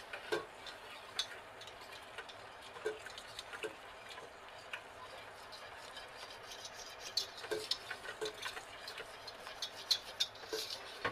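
Wire whisk stirring and clinking against the sides of a stainless steel saucepan as milk is whisked into a flour-and-butter roux: irregular light clicks and scrapes, busier in the last few seconds.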